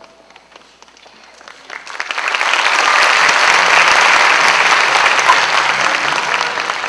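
Theatre audience applauding. The clapping swells about two seconds in and fades away near the end.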